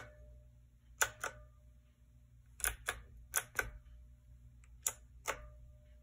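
Keys being pressed on a KnewKey retro typewriter-style mechanical keyboard with round keycaps: sharp clicks that come in about four pairs a second or so apart, some followed by a faint short ring.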